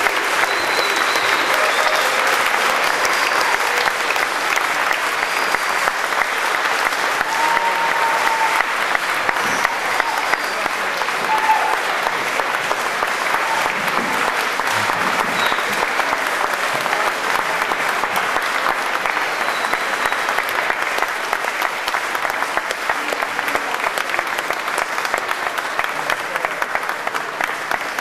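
Audience applauding steadily for a long time, with a few short calls over the clapping. The applause eases off slightly near the end.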